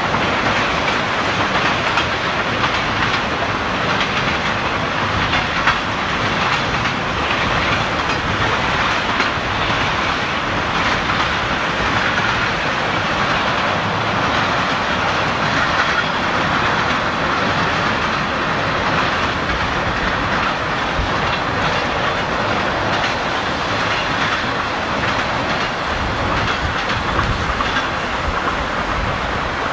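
Freight train rolling across a railroad overpass, a steady noise of its cars' wheels on the rails that holds unchanged throughout.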